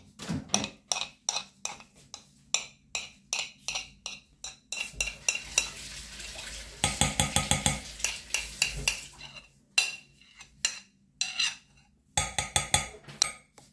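Metal whisk clinking and scraping against a ceramic plate and a glass bowl as sticky fresh cheese is knocked off into crêpe batter: a steady series of short clicks, with a quicker, louder run of clinks about halfway through.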